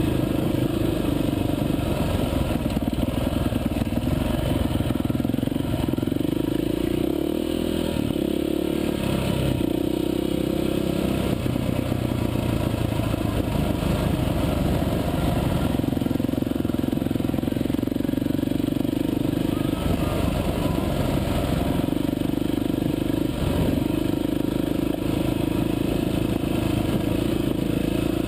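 Off-road motorcycle engine heard from on board while riding, running steadily under load. Its note drops and picks up again twice, about a quarter of the way in and again past the middle, as the throttle is eased and reopened.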